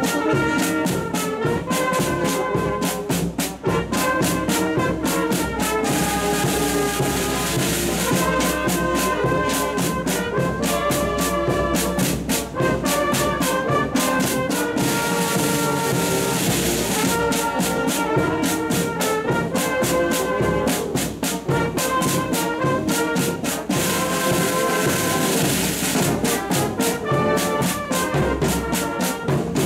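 Brass and drum marching band playing a march on the move: brass instruments carrying the tune over steady, evenly spaced side-drum beats.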